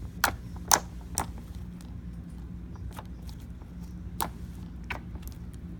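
Puzzle-glue slime popping as it is squeezed and stretched by hand: sharp little pops, three loud ones in the first second or so, then a few fainter ones spread out.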